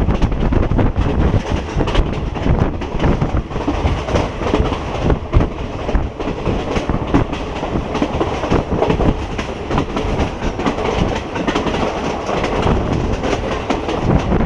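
Train running along the track, its wheels clattering over the rails in a loud, steady rumble.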